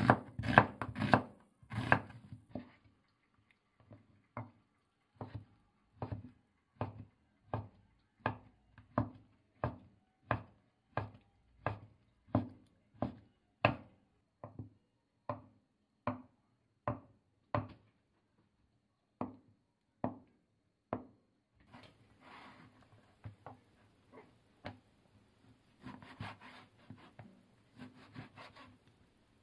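Kitchen knife cutting on a wooden chopping board: a quick run of strokes through an onion, then steady single knocks about every 0.7 s as konnyaku blocks are sliced. In the last several seconds the cutting turns softer and denser as the knife works through sliced pork on a plastic board.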